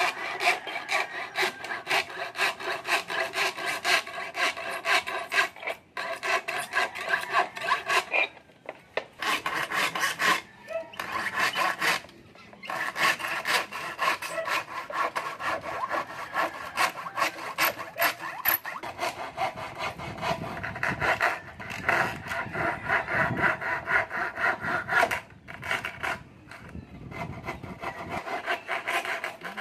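Rapid back-and-forth rasping strokes of a hand tool working material, in several bouts with brief breaks every few seconds.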